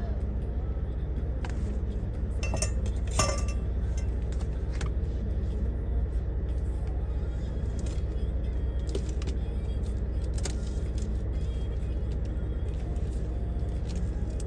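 Steady low rumble of a semi truck's idling engine, heard inside the cab. A few clicks and clinks come about two to three seconds in, as the metal tongs are set down.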